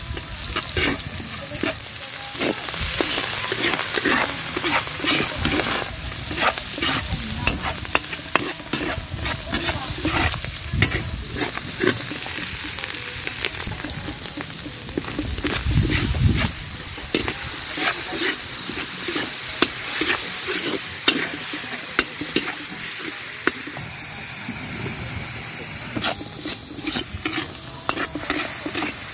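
Metal ladle scraping and knocking against a large steel wok as giant freshwater mussel meat with garlic and onion is stir-fried, sizzling in hot oil. Soy sauce goes into the pan partway through and the stirring goes on in the sauce.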